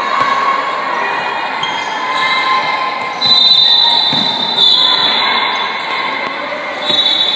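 Spectators shouting and cheering in an echoing sports hall, with shrill sustained cries breaking out loudly about three seconds in, again near five seconds and near the end, over a handball bouncing on the court floor.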